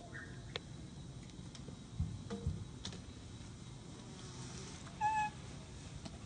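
A short, clear animal call about five seconds in, over a steady faint background, with two soft thuds about two seconds in.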